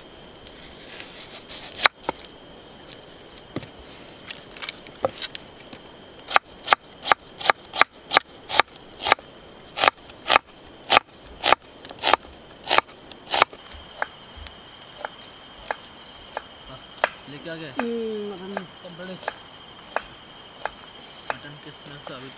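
A knife chopping an onion on a board: a run of about twenty sharp chops, two or three a second, starting about six seconds in and stopping about halfway through, over the steady high chirring of crickets.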